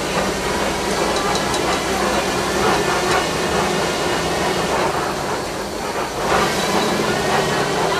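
Open-sided safari truck driving over a rough dirt track: steady engine and road rumble with the body rattling and clicking, easing briefly about six seconds in.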